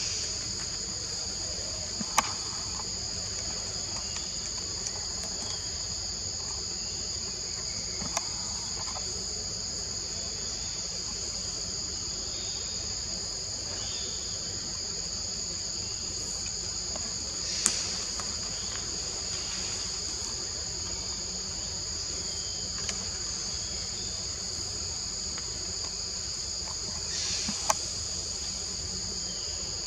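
Steady, high-pitched chorus of insects in the forest, with four sharp clicks or snaps spread through it.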